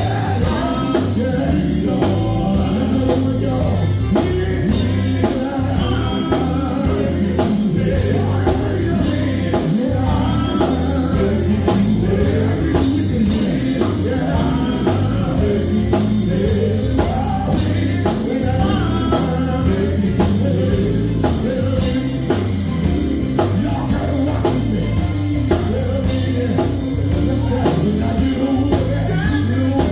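Gospel group singing live with band accompaniment including drums, the music continuous and loud.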